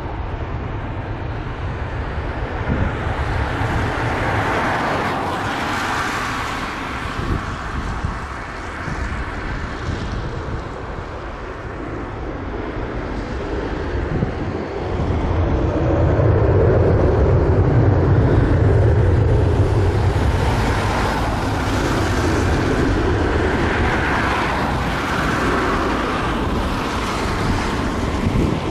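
Twin-engine jet airliner's engines running at takeoff power as it climbs away overhead. The noise grows louder about halfway through, with a deep rumble, then settles to a steady roar.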